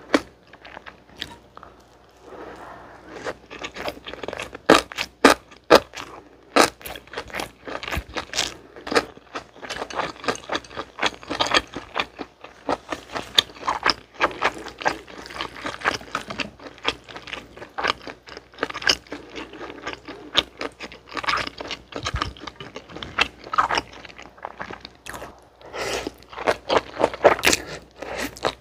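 Close-miked chewing of a mouthful of gimbap: irregular wet mouth clicks, smacks and soft crunches, with a bite at the very start. Near the end, a mouthful of chewy jjolmyeon noodles is taken in and chewed.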